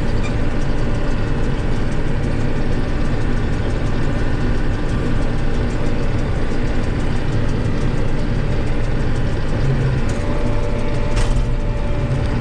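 Combine harvester's diesel engine and threshing machinery running steadily under heavy load while cutting downed wheat; the engine is bogging. A higher steady tone joins about ten seconds in, with a couple of sharp clicks near the end.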